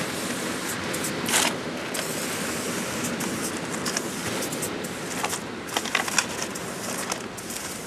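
Aerosol spray-paint can hissing in short bursts against a concrete wall: one longer burst about a second and a half in, then several quick ones near the end. A steady rushing background noise runs underneath.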